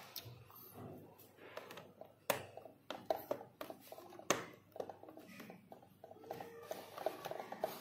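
Hard plastic clicks and knocks from the parts of a toy kitchen set being handled and fitted, with two sharper clicks about two and four seconds in.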